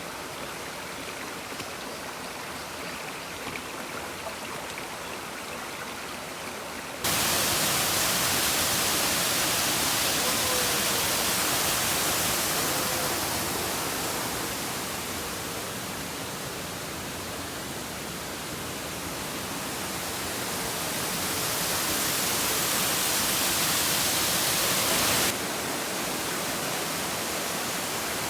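Mountain stream rushing through a rocky gorge: a steady, even rush of water. It turns suddenly louder about a quarter of the way in, eases and swells again, then drops back suddenly near the end.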